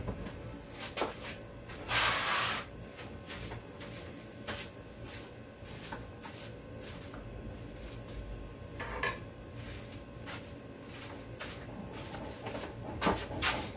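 Sporadic light knocks and clicks of kitchen handling around a stovetop pot, with a short rustling hiss about two seconds in, a smaller one about nine seconds in, and a few sharper knocks near the end.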